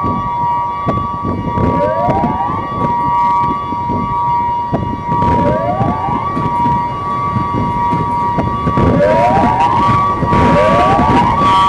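Warning siren sounding two steady high tones together, with a rising glide up into them every few seconds, over a crackly low rumble. It grows a little louder near the end.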